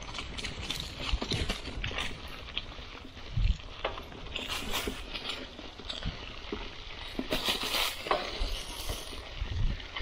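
Mountain bike rolling over a forest track covered in dry fallen leaves: tyres crackling through the leaves, with the bike rattling and thudding over bumps.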